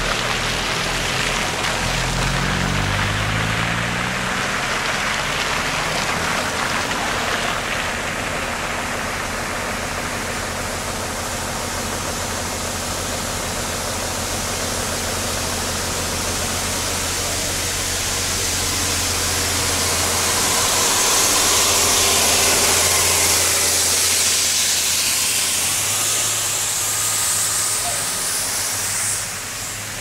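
Traffic on a slushy, snow-covered street: a steady engine hum throughout, with an engine revving up in rising steps a couple of seconds in. Later a city transit bus drives past, its tyres hissing through the slush, loudest a little past two-thirds of the way through.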